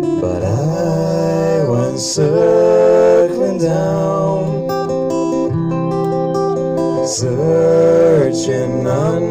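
Live acoustic-pop song: strummed acoustic guitar with an electric guitar, and two men singing together, the voices sliding up into long held notes. Hissy 's' sounds of the singing stand out twice.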